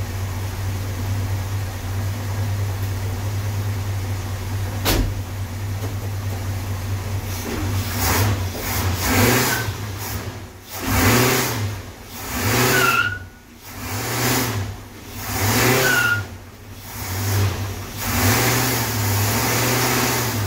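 Rebuilt 440 big-block V8 idling steadily, with one sharp click about five seconds in. From about eight seconds it is revved hard about six times in quick succession, the last held longer, while in gear against the brakes. This is a load test for pinking, and no pinking is heard.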